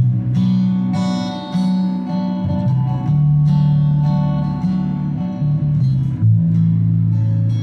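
Live acoustic band music: acoustic guitar strumming over upright bass, with the bass notes loudest.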